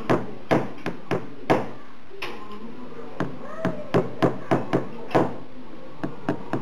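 A series of sharp, irregular taps and knocks on metal, about a dozen, some close together, from working on a small DC motor's end bracket and bushing.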